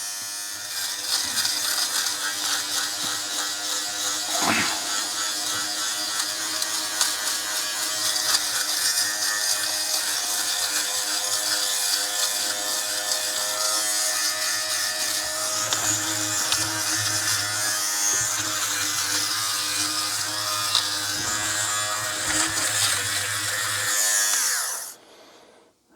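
Battery-powered Philips fabric shaver running with a steady electric buzz as its blades shave pills off a garment, its pitch wavering slightly as it is pushed over the fabric. It is switched off near the end.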